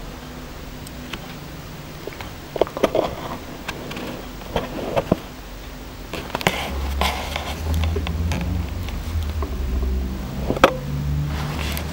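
Handling noise from a hand-held camera: scattered small knocks and rustles, with a low rumble starting about seven seconds in.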